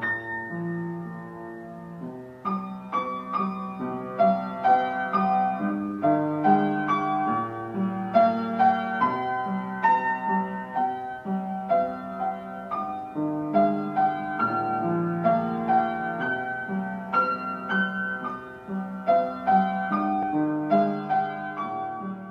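Gentle piano music: a slow melody of struck notes over held chords, quieter for the first couple of seconds and then a steadier run of notes.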